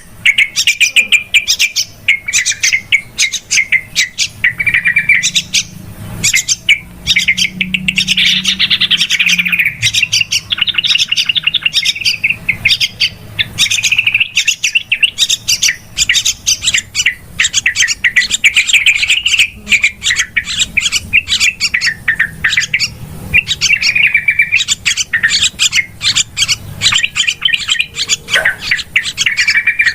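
Trucukan (yellow-vented bulbuls) calling noisily: a dense, near-continuous run of quick bubbling chattering calls. It is the excited "ribut" calling used as a lure to draw wild trucukan in.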